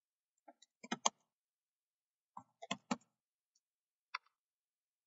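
Computer keyboard keys clicking as a command is typed, in quick runs of keystrokes: one run about a second in (the loudest), another near the middle, and a single keystroke near the end.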